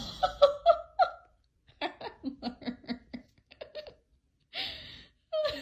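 A person laughing: a few short bursts, then a quick run of short "ha-ha" pulses.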